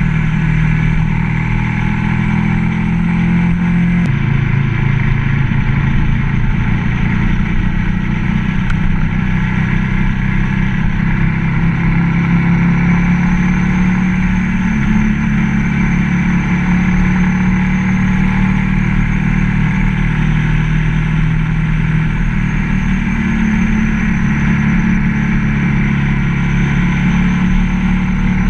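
Ducati ST3s V-twin motorcycle engine under way, heard from the bike itself, with a steady running note. The pitch drops about four seconds in and rises again later as the throttle and gears change.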